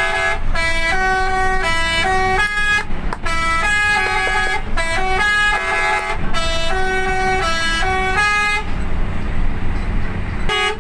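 Telolet bus horn, a multi-trumpet musical air horn, playing a quick tune of stepped notes over a bus engine's low rumble. The tune stops about nine seconds in and starts again near the end.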